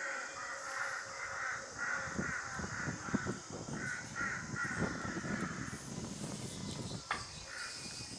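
Crows cawing again and again, harsh calls coming about every half second to a second. A low rumble runs under the middle few seconds, and there is a single sharp click near the end.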